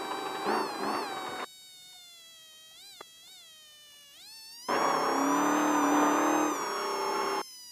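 Off-road race vehicle running, heard inside the cabin. The engine noise cuts out abruptly for about three seconds and again briefly near the end. Through the gaps a thin, high whine keeps sounding, rising and falling in pitch.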